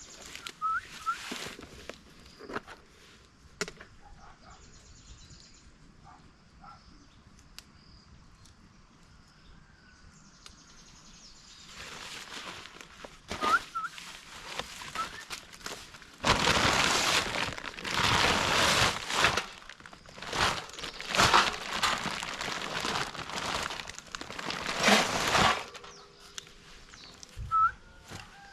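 Irregular bursts of loud rustling noise, mostly in the second half, after a quieter stretch with a few clicks. A few short rising chirps come about a second in and again around halfway.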